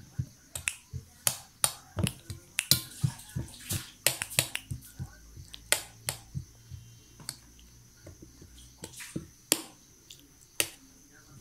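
Metal spoon clinking and scraping against a stainless steel plate: irregular sharp clinks, several a second at first, growing sparser in the second half.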